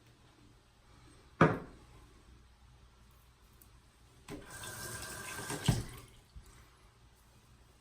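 One sharp knock about a second and a half in, then a sink tap runs for about two seconds, water splashing into the basin, and stops. It starts again just after.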